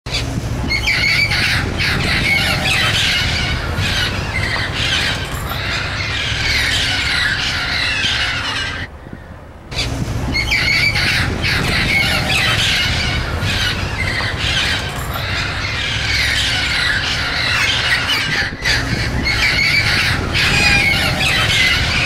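A flock of parrots squawking and screeching, many harsh calls overlapping, with a short break about nine seconds in.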